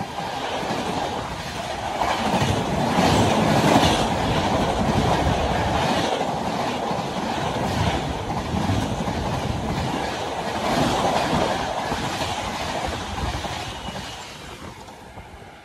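LHB passenger coaches of an express train rushing past at speed, with a steady roar of wheels and air and a repeated clatter of wheels over rail joints. The sound fades in the last couple of seconds as the end of the train goes by.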